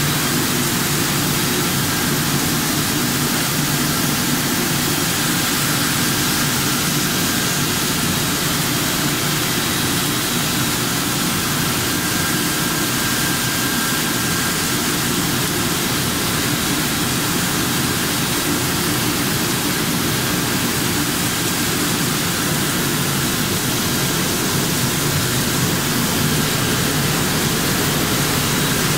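PNMP-800 PVC pulverizer mill running at full speed, a loud, steady whooshing machine noise with a faint high whine.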